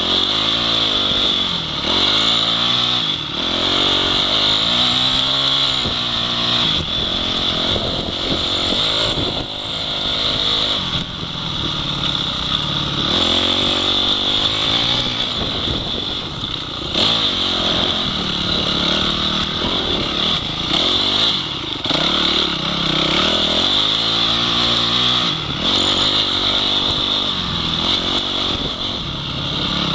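Dirt bike engine revving up and down over and over as the rider accelerates, shifts and rolls off along a rough off-road track, heard from a helmet-mounted camera over a steady hiss.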